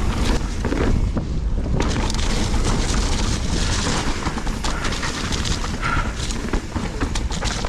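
Wind buffeting the microphone over the rattle and knocks of a mountain bike riding fast down a muddy trail.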